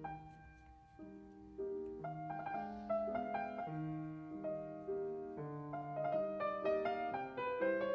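Background piano music: a gentle melody of single held notes, quiet at first and fuller from about a second and a half in.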